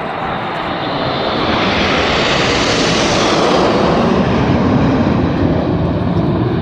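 Red Arrows BAE Hawk jets making a low pass. Their jet noise builds over the first couple of seconds, is loudest in the middle, and loses its high hiss toward the end as they go by.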